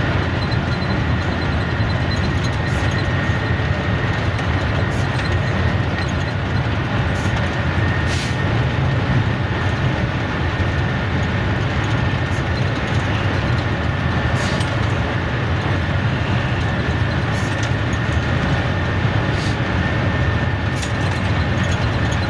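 Vacuum truck's engine and road noise heard inside the cab at a steady cruise, an even rumble with a faint steady whine above it and a few light ticks.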